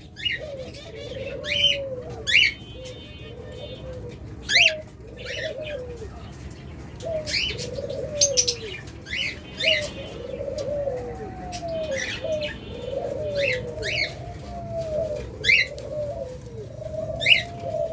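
Several caged doves cooing over and over in overlapping calls, with short sharp chirps from other cage birds about every second or two.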